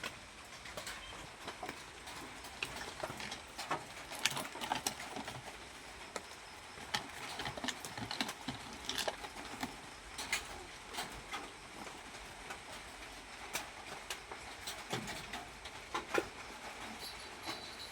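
A run of irregular light clicks and taps, several a second, with no meowing.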